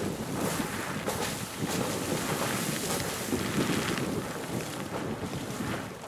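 Sawmill Geyser, a fountain-type geyser, erupting: boiling water splashing up out of its pool in brief, overlapping bursts and falling back, with a few sharper surges. Wind buffets the microphone throughout.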